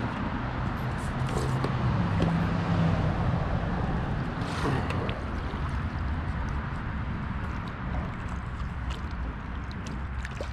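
Plastic sit-on-top kayak being pushed off a mud bank with the paddle and paddled away: the hull rubs and scrapes with a low rumble, then water sloshes with a few light knocks of the paddle.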